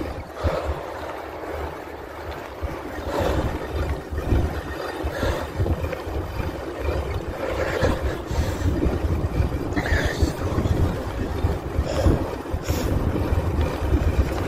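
Wind buffeting the microphone of a camera on a moving bicycle, a gusting rumble over a steady rolling hiss, with a few sharp clicks and rattles along the way.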